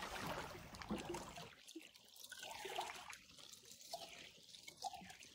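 Faint water trickling and lapping among shoreline rocks.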